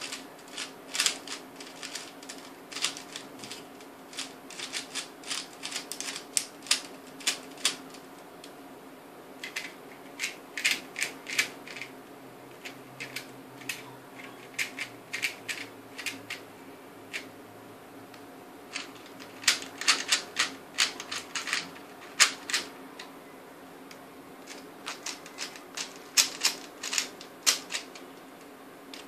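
Rapid clicking of 3x3 speed cubes turned by hand, in quick runs of turns broken by short pauses, each run an OLL algorithm being executed on a set-up cube.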